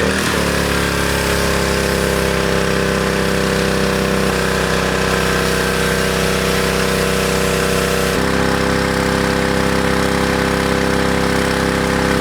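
Gas-powered pressure washer engine running steadily under load, with a hiss above it; the engine note shifts slightly about four and about eight seconds in.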